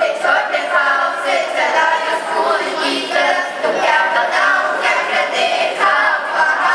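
A group of school children singing a song together as a choir.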